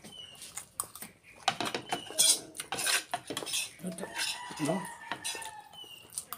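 Plates and dishes clinking and clattering as people eat a meal by hand, with crisp crunching of fresh lettuce and chewing.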